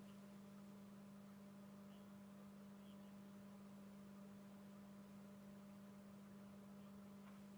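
Near silence apart from a faint, steady low hum, with fainter higher tones above it.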